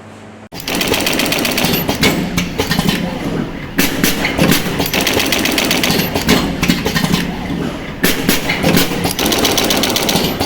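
Automatic ribbon-wire cut, strip, crimp and soldering machine running: a loud, dense clatter of rapid mechanical clicks and knocks, starting abruptly about half a second in.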